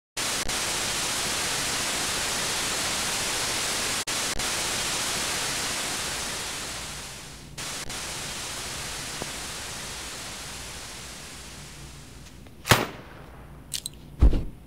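Television static hiss, steady with a few brief dropouts, falling quieter after about seven seconds. Near the end, a sharp crack and then a heavy low thump: the first gunfire of a battle.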